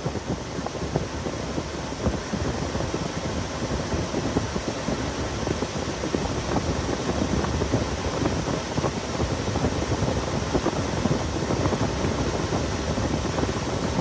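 A 2007 Honda Odyssey's A/C blower runs steadily, a constant rush of air from the dash vent. The system has just been recharged with refrigerant and is blowing cold.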